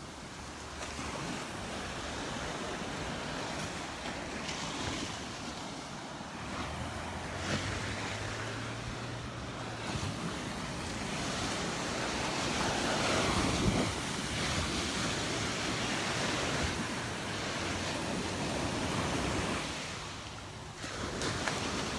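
Gulf of Mexico surf washing onto the beach, with wind buffeting the microphone. The wash swells and ebbs, loudest a little past the middle, and drops away briefly near the end.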